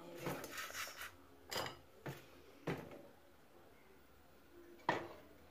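Aluminium pot lid and pots knocking and scraping against each other and a stainless steel sink, about half a dozen clanks, the loudest near the end.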